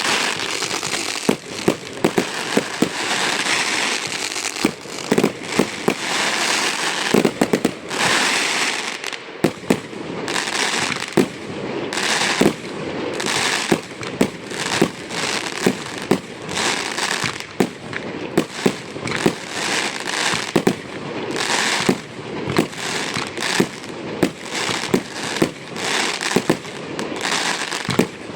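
Aerial fireworks display: a rapid, continuous barrage of shell bursts and bangs, several a second, over dense crackling.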